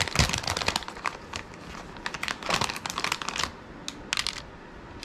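Resin beads clicking and clattering against one another as a hand stirs through a plastic basket full of them. A dense run of clicks thins out after about three and a half seconds, with a few last clicks shortly after.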